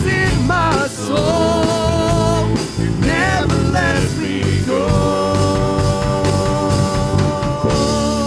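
Live gospel worship music: a singer with instrumental accompaniment, the voice wavering through sung phrases, then a long held final note as the song ends.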